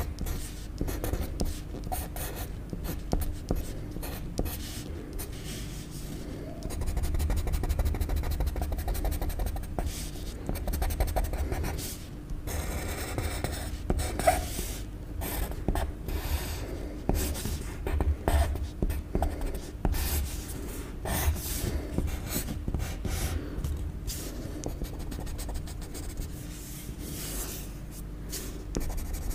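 Pencil sketching on paper: irregular short scratching strokes, some quick and light, some longer, over a low rumble and a faint steady hum.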